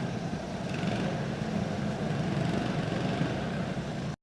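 Small racing kart engines running at low speed, a steady engine drone with no single engine standing out. The sound cuts off suddenly near the end.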